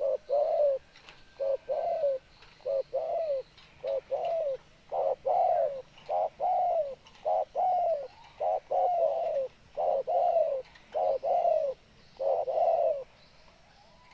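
Spotted dove cooing over and over: about eleven phrases, roughly one a second, each a short note followed by a longer falling coo. It falls silent near the end.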